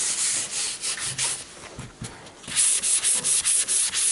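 A grey sanding sponge rubbed by hand back and forth over a primed car panel, dry-sanding the autolevel primer with a rapid, rhythmic scratchy hiss. The strokes pause briefly about halfway through, then resume louder and quicker.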